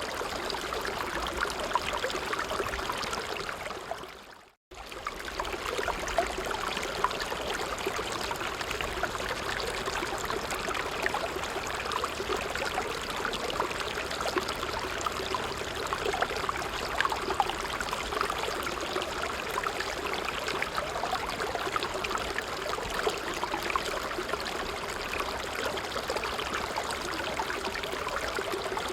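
Creek water flowing and babbling steadily over stones. About four seconds in, the sound fades out briefly to near silence and comes straight back.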